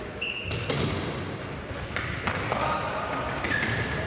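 A futsal ball being kicked and thudding on a wooden sports-hall floor, a few sharp knocks with a hall echo after each, mixed with short high squeaks of players' shoes on the floor.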